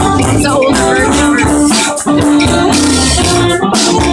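Live band playing loud: drum kit, bass and electric guitar with violin and cello, in rough, poor-quality audio.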